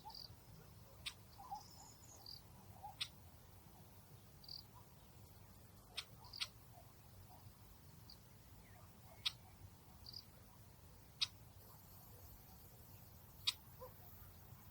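Quiet outdoor nature ambience: faint short chirps and about seven sharp ticks scattered irregularly over a low steady rumble.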